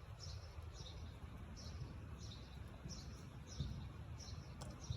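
A bird chirping over and over, a short high chirp about every two-thirds of a second, faint against a low outdoor rumble.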